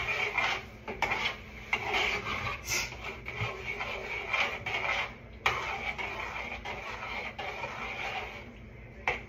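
A cooking utensil scraping and stirring around the inside of a pot, in repeated strokes.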